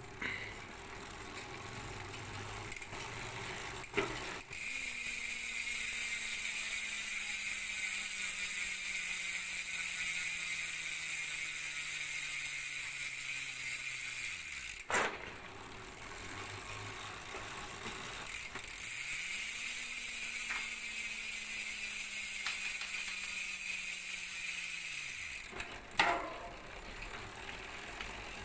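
Koozer XM490 six-pawl mountain bike rear hub freewheeling as the wheel spins: a loud, even pawl buzz whose pitch slowly falls as the wheel slows. It runs twice, each time ending with a click as the wheel stops.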